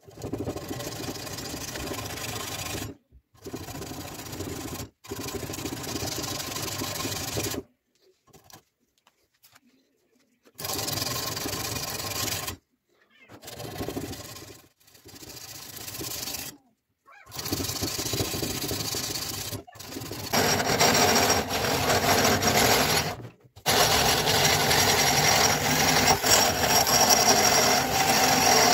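Rusty steel cleaver blade being rubbed down by hand with an abrasive, a steady scraping in short spells that break off abruptly. About twenty seconds in, a small handheld rotary tool with an abrasive wheel takes over, running with a steady high whine as it grinds the blade, with one brief stop.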